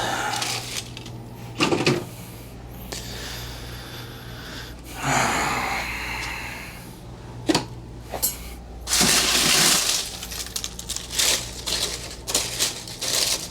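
Empty plant pots knocking and clattering as they are handled and stacked, with scraping and rustling in between.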